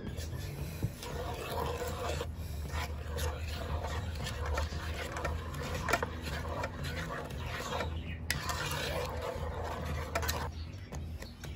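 Wooden spoon stirring sauce in a pot, scraping and swishing against the bottom and sides in steady strokes, with a couple of sharper knocks of the spoon on the pot.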